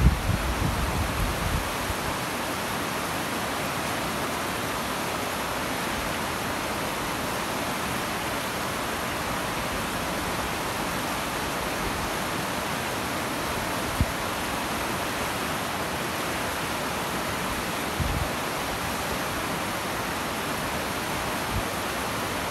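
Steady rush of a small mountain river flowing over rocks and through shallow rapids. A few brief low bumps come in the first couple of seconds and a few times later.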